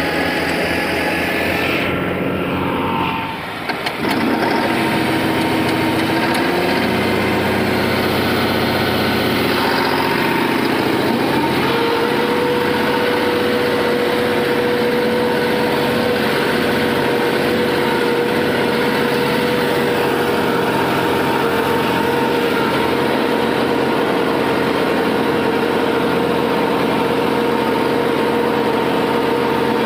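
New Holland 5620 tractor's common-rail diesel engine running steadily, heard close up from the driver's seat. The sound drops briefly about three seconds in, and a steady whine joins about twelve seconds in.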